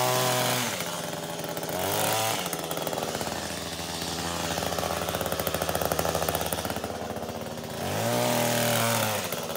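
Echo two-stroke gas hedge trimmer revving up in bursts while cutting and dropping back to a pulsing idle in between: revved at the start, briefly around two seconds in, and again near the end.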